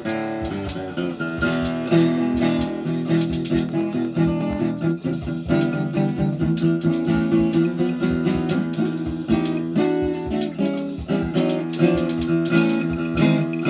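Guitar music: a guitar plucked in a run of quick notes and chords, with no pause.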